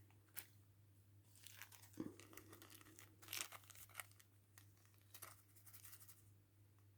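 Faint crinkling and rustling of small plastic bags of diamond-painting drills being handled, with a few sharper clicks among the rustles.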